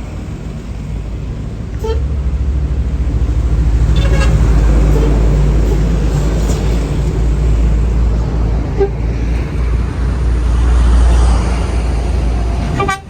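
Tour bus engine running loud and close, its rumble swelling about two seconds in as the bus moves past, with horn toots.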